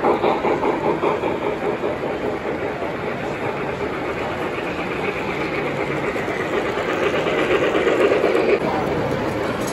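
O scale model freight trains rolling past close by, the wheels clattering rhythmically at first and then running as a steady rumble. The rumble swells louder near the end as a model steam locomotive and its tender pass.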